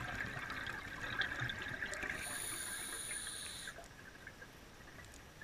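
Scuba diver breathing through a regulator underwater: a bubbly, crackling exhale, then about two seconds in a steady hissing inhale with a thin whistle, lasting about a second and a half.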